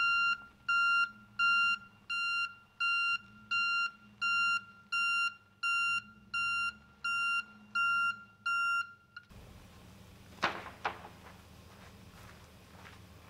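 Reversing alarm of a flatbed delivery truck: a high beep repeating about three times every two seconds, cutting off suddenly about nine seconds in. A couple of sharp knocks follow.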